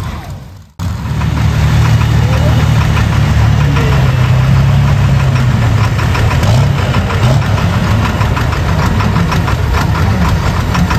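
Turbocharged diesel engine of a Pro Stock pulling tractor idling with a steady, fast clatter, coming in after a brief gap about a second in.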